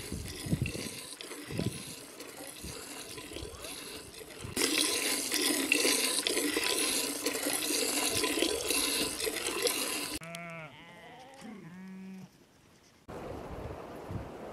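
Cow being milked by hand into a metal bowl: streams of milk hiss steadily into the bowl for about five seconds. Then two short animal calls, one after the other.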